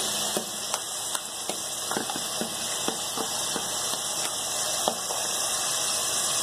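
Chicken and potatoes frying in oil in an aluminium pot, a steady sizzle, with irregular sharp clicks and taps of a metal utensil scraping tomato purée from a bowl into the pot.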